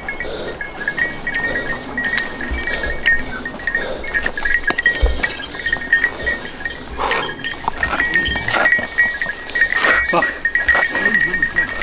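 Hunting dogs' collar bells jingling on and off as the dogs move through the brush. In the last few seconds the dogs are worrying a shot wild boar, adding scuffling and tugging sounds.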